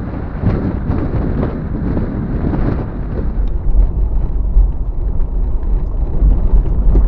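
Vehicle driving on a dirt road: a steady rumble of engine and tyres, with low wind buffeting on the microphone that grows heavier in the second half.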